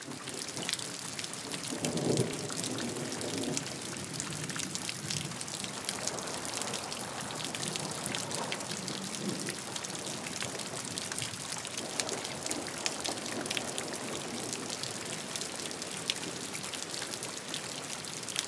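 Steady rain falling, a dense haze of many fine individual drop ticks, with a brief swell in the lower range about two seconds in.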